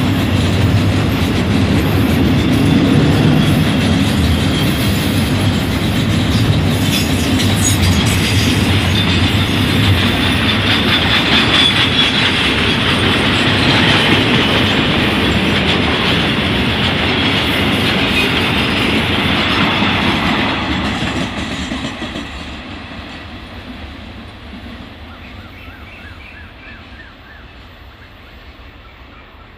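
Freight train of crude-oil tank wagons rolling past close by, loud and steady, then fading away from about 21 seconds in as the end of the train passes.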